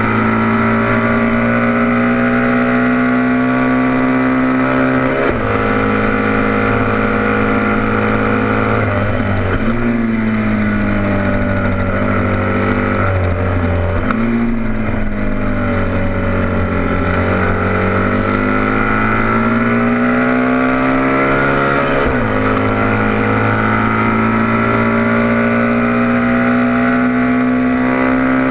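Racing motorcycle engine heard from onboard the bike, held at high revs with a few short breaks in its note. Through the middle the revs fall away slowly for a tight corner, then climb again as the bike accelerates out.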